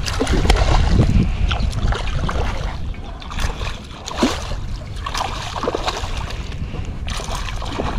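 Wind rumbling on the microphone, with irregular splashing as a hooked bluefish thrashes at the surface beside the kayak.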